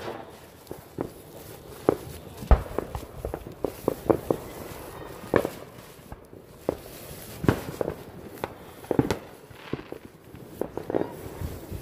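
Fireworks and firecrackers going off: a scattered, irregular run of sharp pops and cracks, the loudest about two and a half seconds in.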